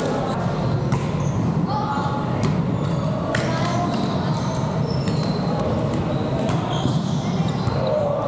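Volleyball being played on a hardwood gym floor: sharp hits and thuds of the ball, short sneaker squeaks, and players' indistinct calls, all echoing in a large hall.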